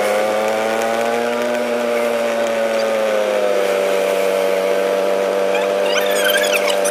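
Engine of the moving vehicle, heard from on board, running with a steady drone that rises slightly in pitch and then settles. Near the end, a few short high squeaks.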